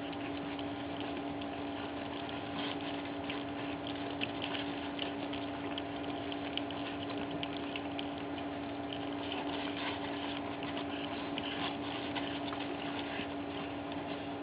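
Several pug puppies lapping and smacking wet weaning food from one bowl: a fast, irregular wet clicking. A steady hum runs underneath.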